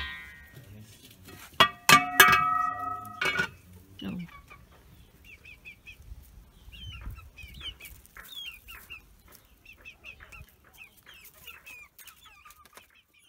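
A metal spoon strikes a metal bowl a few times about two seconds in, each strike ringing on briefly. After that, chickens cluck with short, repeated calls until the end.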